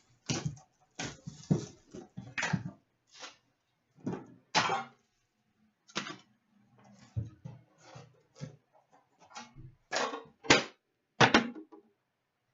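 Handling noises of trading-card packaging being opened: a series of short crinkling and rustling bursts, with two sharp clicks or taps a little after ten and eleven seconds in that are the loudest.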